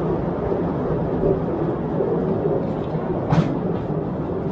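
Postojna Cave's open tourist train running along its track, a steady rumble and rattle of the carriages, with one sharp clack about three seconds in.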